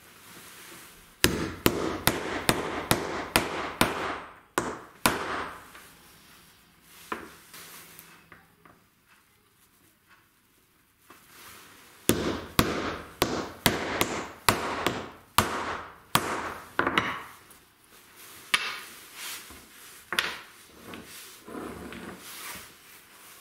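A steel hammer drives steel M8 T-nuts into plywood knobs. It strikes in quick runs of about a dozen sharp blows, about three a second, with a few seconds' pause between runs, and ends in lighter taps.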